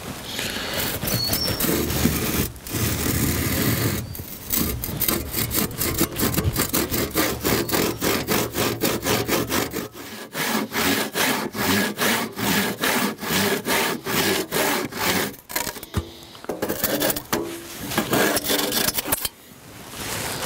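Hand saw crosscutting through a squared timber beam: a long run of steady, even back-and-forth strokes of the blade in the wood, with a brief pause about ten seconds in.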